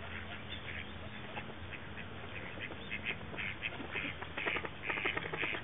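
A flock of eastern spot-billed ducks quacking and calling in short, overlapping notes that grow busier and louder in the second half.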